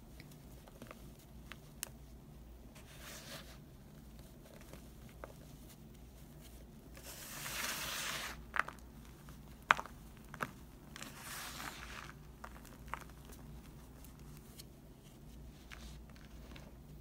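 A hand raking and crumbling dry Foca powdered detergent mixed with baking soda: soft sifting swishes and small crunches as lumps break. A louder swishing rake comes about seven seconds in, followed by a few sharp crunchy cracks.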